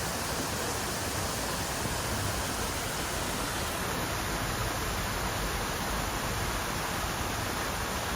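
Steady rush of stream water, an even wash of noise with no change throughout.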